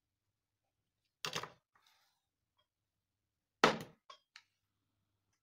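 Two knocks of a solder reel and hand tools being put down and picked up on a workbench, about two and a half seconds apart. The second knock is the louder and is followed by two light clicks.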